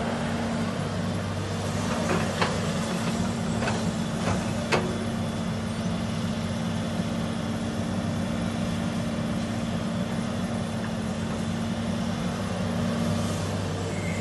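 Crawler excavator's diesel engine running steadily as the machine swings and digs, with a handful of sharp clanks between about two and five seconds in.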